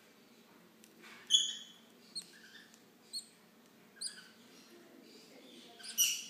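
Baby green-cheeked conure chicks giving short, high-pitched squeaky calls, the begging calls of chicks at hand feeding. There are about five calls, the loudest about a second in and near the end.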